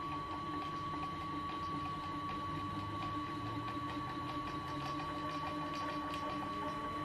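Homemade small CNC lathe running: the spindle turns a cast iron workpiece while the tool carriage feeds in toward it, giving a steady motor whine over a lower hum, with no cutting yet.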